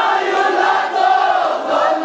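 A large crowd of men chanting a Balti noha, a Shia mourning lament, together, their voices overlapping in a loud, steady mass.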